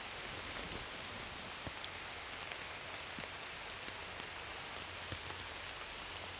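Steady rain falling, an even hiss with a few faint ticks scattered through it.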